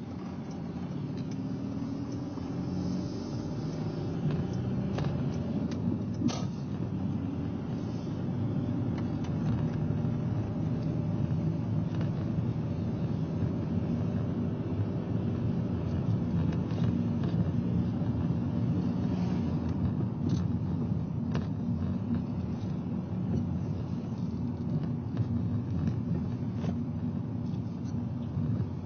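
A car driving slowly, heard from inside the cabin: a steady low rumble of engine and tyre noise, with the engine note shifting a little as it goes and a few light ticks.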